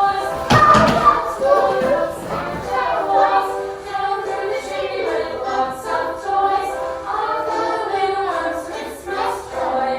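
A group of young children singing a song together, with some musical backing.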